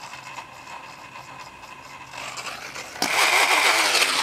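Small motor of a battery-powered electronic Beyblade launcher running with a steady whir; about three seconds in it suddenly gets much louder and buzzier.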